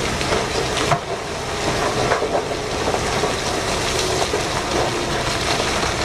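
A load of coal and rock sliding out of a giant mining dump truck's raised bed: a steady rushing clatter of tumbling rock, with a few sharper knocks.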